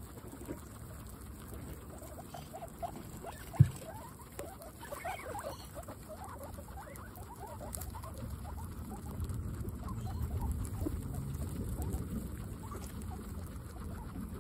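Several guinea pigs chewing and tearing fresh grass close to the microphone: a continuous patter of small, quick crunching bites. A single sharp knock stands out about three and a half seconds in.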